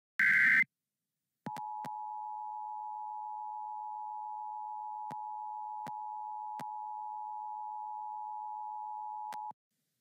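Emergency Alert System warning signal: a half-second screech of digital header data near the start, then the EAS attention tone, two steady notes sounded together for about eight seconds with a few faint clicks. It announces an emergency alert, here a severe thunderstorm warning.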